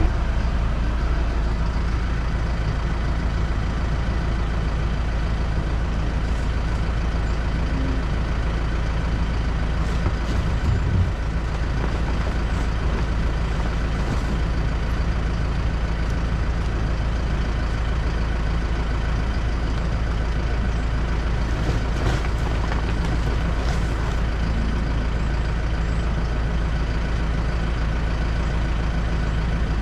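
Heavy farm-machinery engine running steadily at a constant speed, with a strong low hum.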